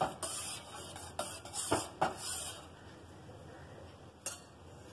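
Steel ladle stirring milk payasam in a steel saucepan, scraping and clinking against the pot: several clinks in the first two seconds, then a softer stretch with one more clink near the end.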